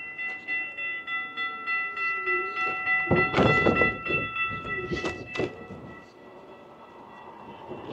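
Railroad crossing warning bell ringing in rapid regular strokes, stopping about five and a half seconds in. Loud rattling thumps come about three seconds in and again about five seconds in as the electric scooter's wheels roll over the rails of the crossing.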